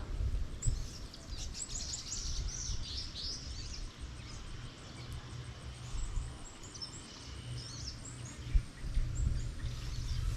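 Small birds chirping, many quick high calls overlapping in the first few seconds, then fewer and fainter. Under them runs a low rumble of wind on the microphone.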